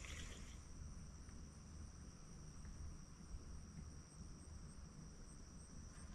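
Insects trilling steadily: a faint, high, continuous buzz with soft regular pips above it, over a low rumble.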